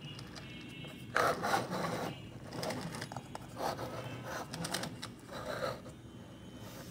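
Toy school bus being handled: a series of short scraping and rubbing sounds, starting about a second in.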